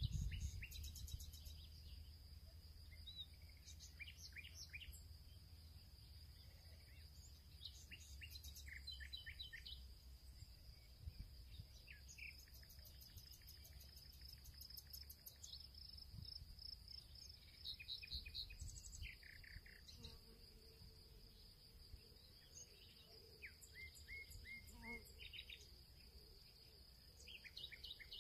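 Faint background birdsong, short chirps in scattered clusters over a steady high-pitched insect drone.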